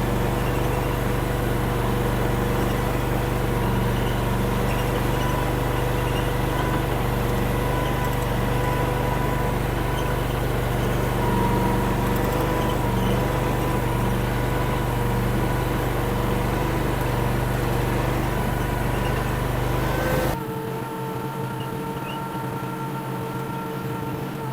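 Derette DRT450 mini skid steer engine running steadily while the machine hauls a heavy equipment trailer on its hitch attachment. About twenty seconds in, the sound drops abruptly and becomes quieter and thinner.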